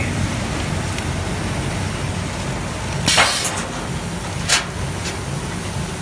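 Sesame washing machine running: a steady motor hum under the wash of water spraying through a stainless-steel drum of black sesame seeds. Two short hissing bursts stand out about three seconds in and again a second and a half later.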